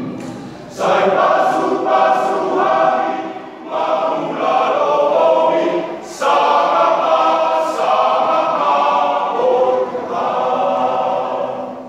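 Men's choir singing in phrases, with brief breaks between them and sharp hissed consonants from the singers.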